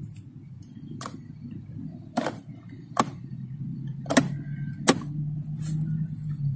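Sharp plastic clicks and knocks from a car's centre console box lid being handled, five of them about a second apart, over a low steady hum.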